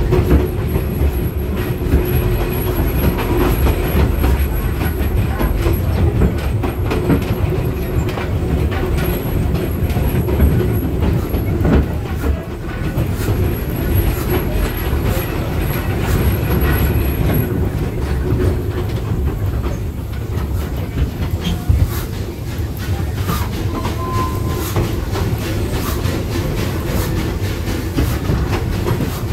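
Train wheels rumbling and clattering along the track, heard from an open passenger car, with steady clicks over the rail joints.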